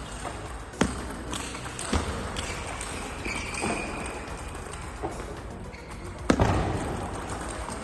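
Table tennis ball knocking off paddle and table, a handful of sharp spaced hits echoing in a large hall, the loudest about six seconds in. A brief high squeak comes in the middle.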